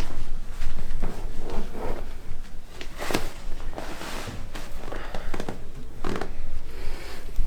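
A side-lying lower-back chiropractic adjustment: rustling on the treatment table and several sharp cracks and knocks, the loudest about three seconds in and another near six seconds, as the lumbar joints are thrust.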